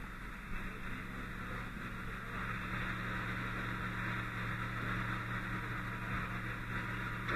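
A steady low mechanical hum under an even hiss, growing slightly louder about two and a half seconds in.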